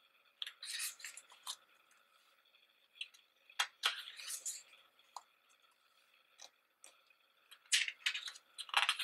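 Paper pages of a photobook being turned by hand: three rustling page turns with crisp flicks of paper, one roughly every three to four seconds.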